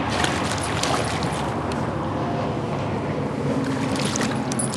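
Steady road noise from interstate highway traffic, with a low hum that grows stronger in the second half and a few light clicks on top.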